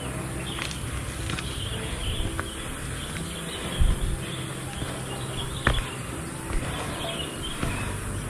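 Outdoor ambience of insects and birds chirping over a steady background hiss, broken by a couple of short low thumps.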